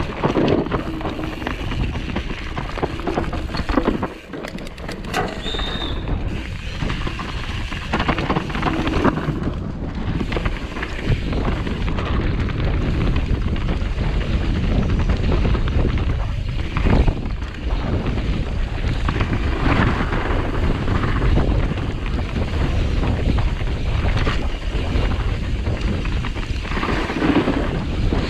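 Wind buffeting the microphone of a camera riding on a downhill mountain bike in motion, with frequent knocks and rattles from the bike over rough ground.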